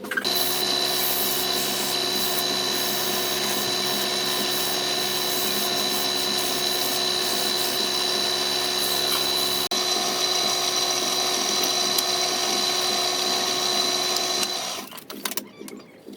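Electric power tool motor, most likely a woodturning lathe, running steadily with a high whine over a hiss. It starts abruptly, breaks for an instant about ten seconds in, and winds down near the end.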